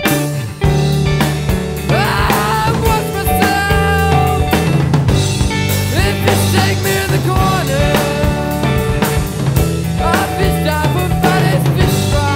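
Background music with a drum kit and a steady bass line, and a bending melodic line over it.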